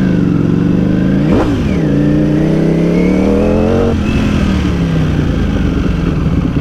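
Ducati Panigale V4S's 1103 cc V4 engine heard from on the bike while riding. Its note climbs steadily under throttle, with a quick sharp rev spike a little over a second in. It drops suddenly about four seconds in and settles into a steady lower note.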